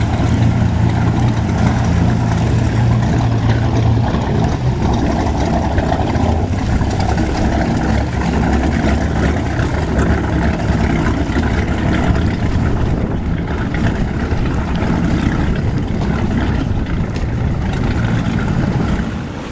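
Engine of a 640-horsepower BPM-powered wooden gentleman's racer running under way, a loud steady rumble mixed with rushing water and wind. Its deep steady hum drops away about four seconds in.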